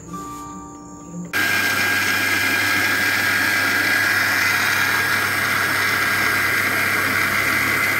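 Sujata Multimix 900 W mixer grinder switched on about a second in. Its motor runs with a steady whine as the steel jar wet-grinds rice and coconut with water into batter.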